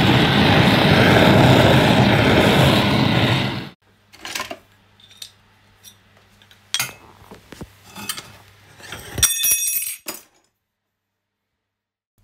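A jeweller's gas torch flame hissing steadily while heating a gold wire on a soldering block, cutting off abruptly a little under four seconds in. Then scattered clicks and clinks of steel hand tools being handled, with a short ringing metallic clink near the end.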